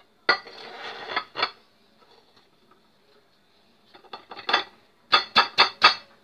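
Hands knocking and slapping an upturned fluted metal cake mould resting on a serving plate, to loosen a chilled flan-topped cake so it drops out. A knock and a scraping rub come about a third of a second in, scattered taps follow around four seconds, and five quick sharp slaps come near the end.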